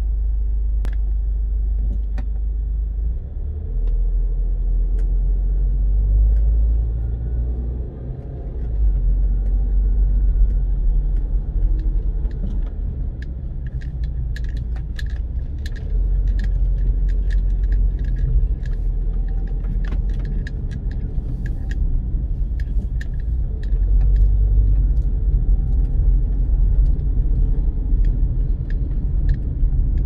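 Car driving, a steady low rumble of road and engine noise. Scattered light clicks and rattles come through the second half.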